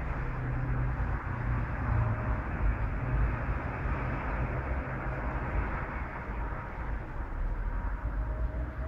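Steady outdoor background noise with an uneven low rumble and no distinct events.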